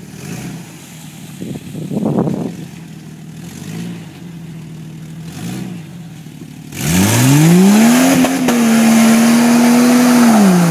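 1993 Jeep Cherokee's 4.0L straight-six running with a few short revs, then floored about seven seconds in. The revs climb fast and hang flat at the rev limiter while the mud tires spin and throw mud, then drop back to a lower steady pitch near the end.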